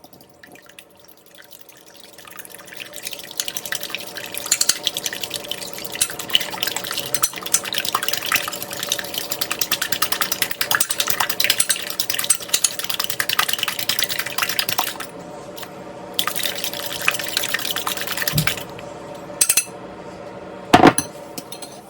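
Beaten eggs being whisked in a bowl: fast, steady clicking of the utensil against the bowl, with a wet, sloshing sound. The beating stops about 15 seconds in, picks up briefly, and ends with a few separate knocks on the bowl.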